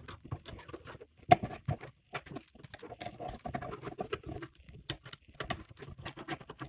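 Small, irregular clicks, taps and scrapes of a precision screwdriver and metal tools working on tiny screws inside an iPhone 5. The sharpest click comes about a second and a half in.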